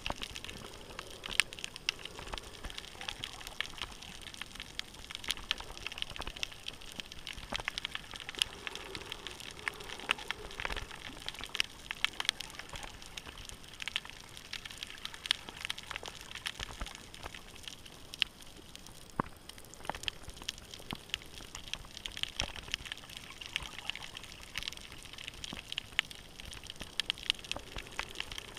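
Underwater reef ambience heard through a camera's waterproof housing: a dense, continuous crackle of small sharp clicks over a faint water hiss.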